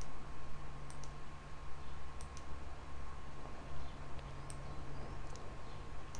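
Computer mouse buttons clicking as photos are selected and dragged into place: sharp clicks every second or two, several in quick double-click pairs. A steady low electrical hum with a faint thin whine sits underneath.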